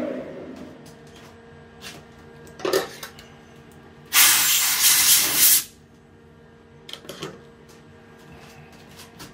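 The lathe spindle's falling whine dies away at the start. About four seconds in, a loud pressurised spray hisses for about a second and a half. A few faint clicks come before and after it.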